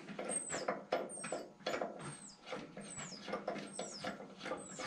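Short high-pitched squeaks that fall in pitch, each with small clicks, repeating about twice a second, from the lower blade-guide assembly of a Delta 14-inch bandsaw as its slot-headed screws are worked loose with a flathead screwdriver.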